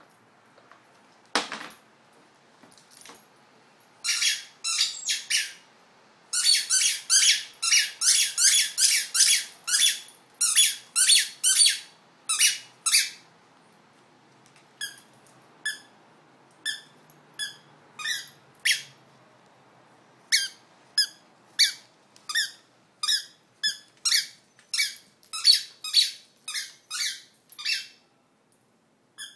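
Squeaky tennis ball toy squeaking over and over as a French bulldog chews it: quick runs of squeaks at first, then single squeaks about once a second. A single knock comes shortly before the squeaking starts.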